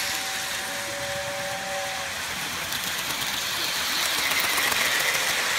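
Lionel model train running on its track, a steady rumbling whir of wheels and motor that grows louder near the end as the locomotive comes round. A steady two-note tone sounds until about two seconds in.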